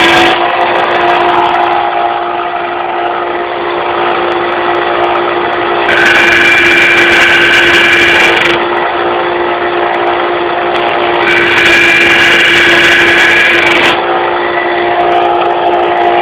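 Benchtop belt sander running steadily with a constant motor hum, while metal is pressed against the belt twice, each time a loud hissing grind of about two and a half seconds, about six and about eleven seconds in.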